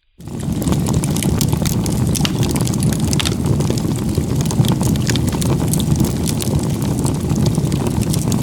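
Wood fire burning, with a steady low rushing noise and frequent sharp crackles and pops throughout.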